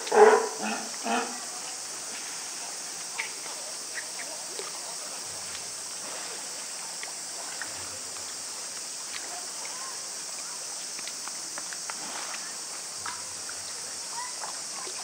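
California sea lion pup calling: a short run of bleating calls in the first second, then a steady high hiss with a few faint clicks.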